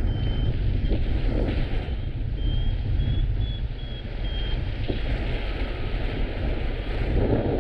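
Strong wind buffeting the microphone, with a paragliding variometer giving short high-pitched beeps: one at the start, then a run of them in the middle, a little higher in pitch, the signal that the glider is climbing.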